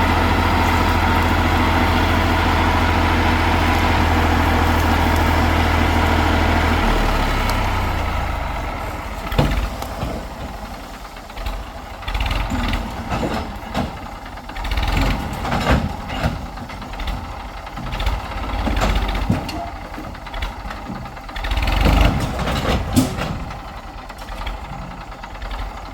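Heavy diesel machinery engine running steadily, then dropping away about seven seconds in. After that come scattered knocks and thumps over a quieter engine note that rises and falls.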